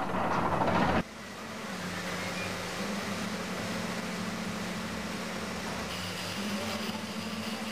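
Olive-mill machinery running with a steady low hum. A louder rushing noise during the first second cuts off suddenly, leaving the even drone.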